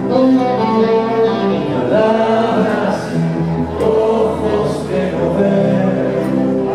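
Live rock band playing a song, with singing over the guitars.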